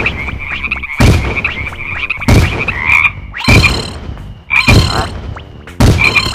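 Cartoon frog croaking sound effects, a pulsing high croak, cut through by loud thuds about once every second.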